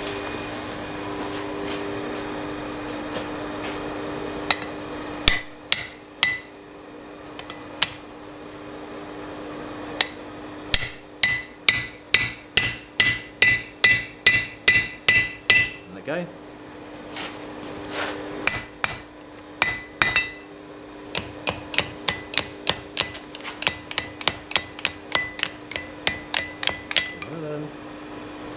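Hand hammer striking a hardened-steel drift through a red-hot steel pommel on an anvil, opening the hole for the sword's tang. A few single blows come first, then fast runs of strikes at about two to three a second, each ringing off the steel, over a steady hum.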